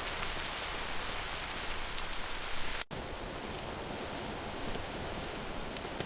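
Steady rain falling, an even hiss with scattered drop ticks. It cuts out for an instant nearly three seconds in, then carries on slightly softer.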